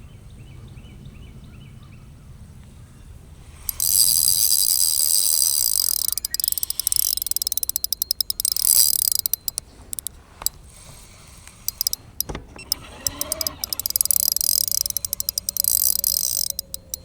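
Spinning reel being cranked on an ultralight rod, a whirring with rapid ticking from the gears that starts suddenly a few seconds in, pauses and resumes in spells as the lure is retrieved. A single sharp knock comes about two-thirds of the way through.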